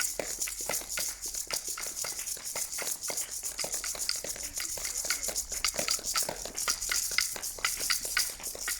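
A crowd of people clapping their hands, a dense, irregular patter of many claps that keeps going steadily.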